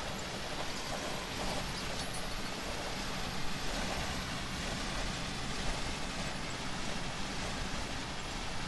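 Steady engine and road noise inside a semi-truck's day cab cruising on the highway, a low hum under an even rush of tyres and wind.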